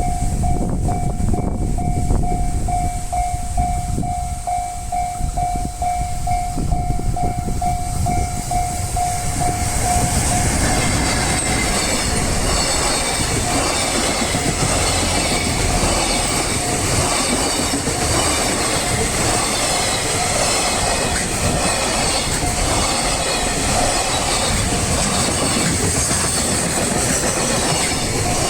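Level-crossing warning bell ringing in steady pulses, about two a second. From about ten seconds in, a train passes over the crossing, its wheels clattering over the rail joints and drowning out the bell.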